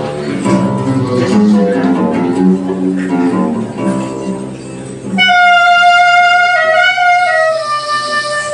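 Live jazz band music: quick plucked-string notes over the ensemble, then about five seconds in the band drops away and a single wind instrument holds long, sustained notes, sliding to a lower note near the end.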